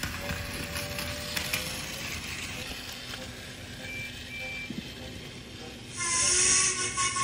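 Battery-powered Plarail toy train running on plastic track, a steady motor hum and track rattle with a few short faint beeps. About six seconds in, a louder electronic sound effect with hissing and steady tones starts up.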